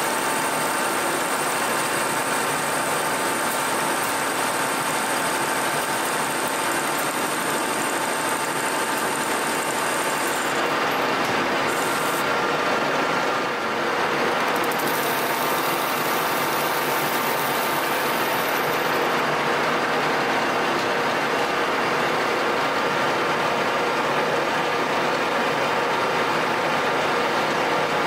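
Metal lathe running steadily while a boring bar cuts the inside of a pipe: an even machining noise with a few thin whining tones from the machine, which shift about a third of the way through, and a brief dip in level about halfway.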